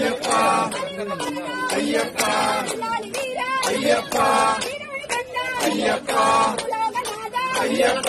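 Voices singing an Ayyappa bhajan, a Hindu devotional song, as a continuous melody over a steady, regular percussive beat.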